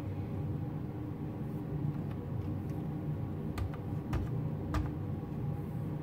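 Steady low machine hum from a running desktop computer as it boots, with a few faint clicks a little past halfway.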